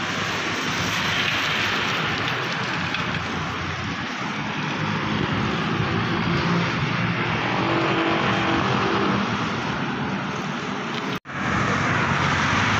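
Steady traffic noise on a rain-wet road, heard from a moving bicycle: a constant hiss of tyres and passing motor vehicles. It cuts out for an instant near the end.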